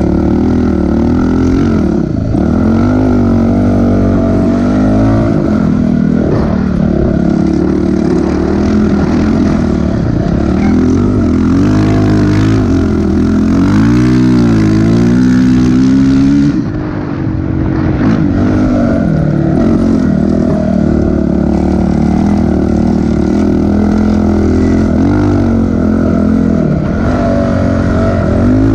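Dirt bike engine running hard under load while riding through soft sand. Its pitch rises and falls repeatedly as the throttle is worked, with a brief drop in the engine note a little past halfway.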